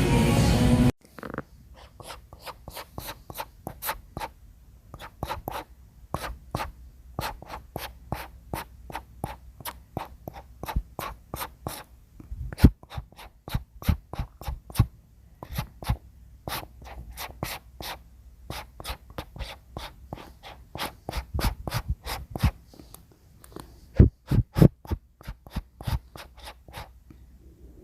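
Paintbrush bristles stroking across wood in short, quick strokes, two or three a second at an irregular pace.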